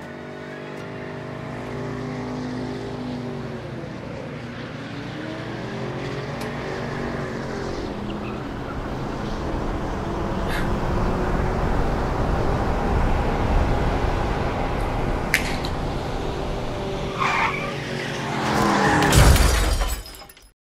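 A car growing steadily louder as it approaches, its pitch gliding, with tyres squealing near the end; the sound swells to a loud peak and then cuts off suddenly.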